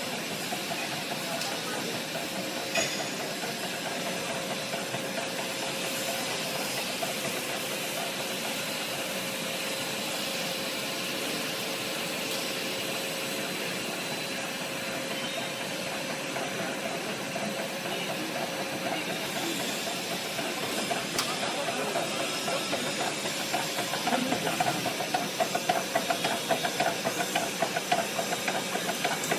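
Running cable extrusion line machinery: an even mechanical hiss with a faint steady hum. About two-thirds of the way in, a fast rhythmic pulsing comes in and grows louder toward the end.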